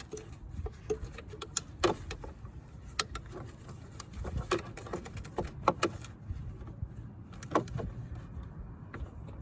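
Scattered metallic clicks and clinks of a socket, extension and small ratchet being fitted onto a bolt, over a low handling rumble.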